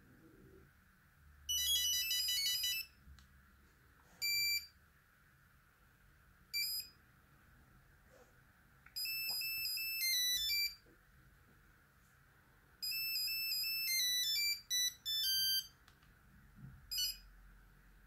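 A Nokia 3310 playing its built-in monophonic ringtones through its small speaker: short beeping melodies, one note at a time, in about six separate phrases with brief pauses between them as the ringtone list is scrolled and each tone previews.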